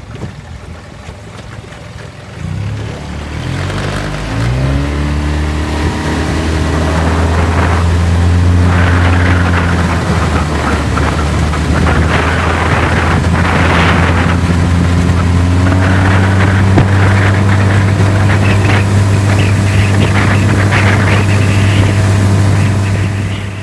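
25 hp Bigfoot outboard motor on an aluminium jon boat, revving up in a few rising steps about three seconds in, then running steadily at cruising speed.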